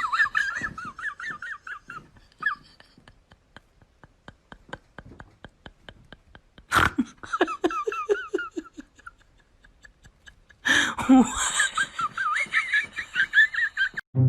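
High-pitched laughing in quick repeated pulses with a wobbling pitch, coming in three stretches with sudden breaks about seven and eleven seconds in.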